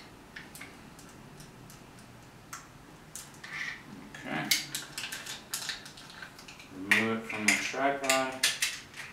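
Light clicks, taps and knocks of a small wooden barn-door star tracker and its camera mount being handled and taken apart by hand. About seven seconds in, a brief low voice sound in two parts stands out above the clicks.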